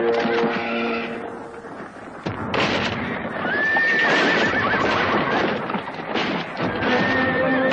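A horse whinnying twice, a long wavering call about three seconds in and a shorter one near the end, over the clatter of galloping hooves. Held music notes fade out in the first second or two and come back near the end.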